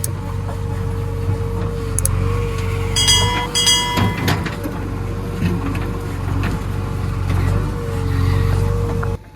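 JCB 3DX backhoe loader's diesel engine running under work, a steady low hum with a wavering whine above it. About three seconds in there are two short beeps, and the sound cuts off abruptly near the end.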